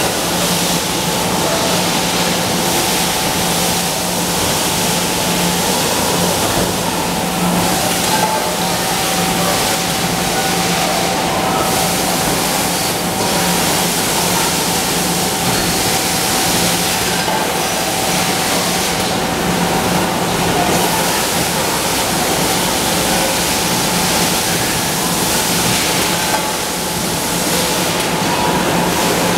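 Steady machinery noise from an aluminium cookware production line, with a belt conveyor and hydraulic presses running. A constant low hum runs under a fainter steady whine.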